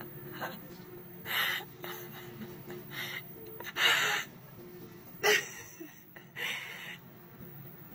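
About five short, breathy snorts of air, the loudest a longer puff about four seconds in and a sharp one about five seconds in, over a faint steady hum.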